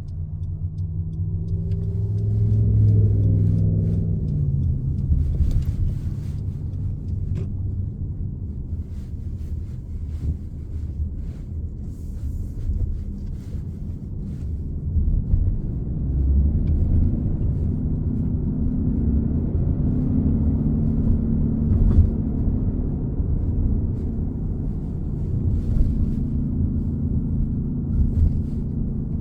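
2015 Honda CR-V Touring on the move: a steady low rumble with a loud droning hum from the rear. The hum rises in pitch within the first few seconds and holds steadier later on.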